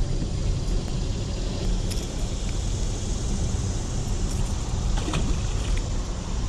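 Wind buffeting the camera microphone: a steady low rumble and rush.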